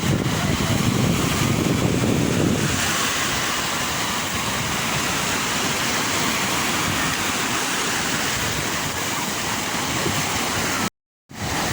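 Sea waves washing in, heard as an even rushing noise. About three seconds in, the deep rumble drops away and a lighter hiss remains. Near the end the sound cuts out completely for about half a second.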